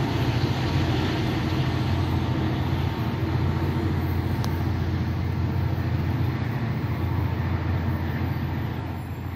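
NJ Transit commuter train pulling away down the line, heard as a steady low rumble that eases slightly near the end.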